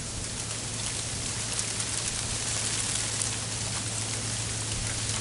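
Mixed freezing rain and sleet falling steadily, with many small ticks of ice pellets striking surfaces over the hiss of the rain. A steady low hum runs underneath.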